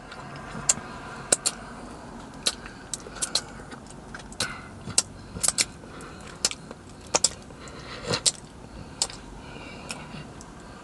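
Close-up mouth sounds of someone chewing a doughnut: irregular sharp smacks and clicks, roughly two a second, over a steady background hum.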